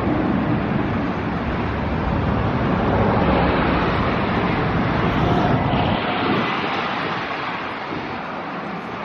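Jet airliner engine noise passing: a loud, even rush with a low rumble that drops away about six seconds in as the sound slowly fades.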